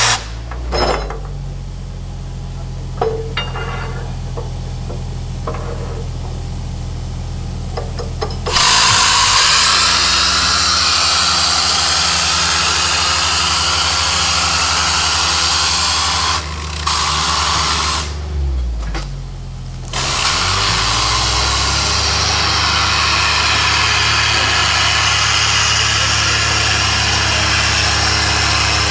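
Air-powered Eimco rocker shovel running on compressed air: a loud hiss of exhausting air starts about eight seconds in, cuts out briefly twice, then carries on. Underneath is a steady low engine hum.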